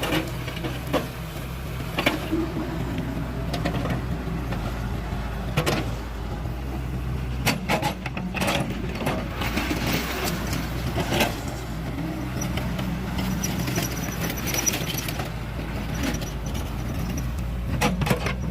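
An engine running steadily, with scattered clanks and knocks and a faint high squeal partway through.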